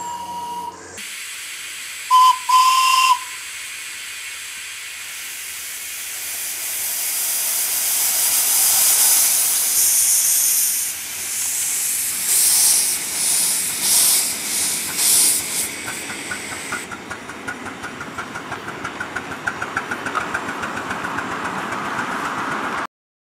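Miniature live-steam locomotive, a model of LNER B1 no. 8306, gives two short toots on its whistle, then hisses steam as it gets under way. In the last few seconds this turns into fast, regular chuffs from the exhaust as it pulls along.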